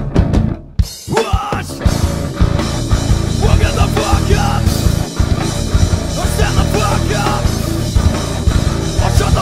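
Rock band playing live: drum kit, electric guitar and bass guitar. After a short break about a second in, the full band comes in with a man singing.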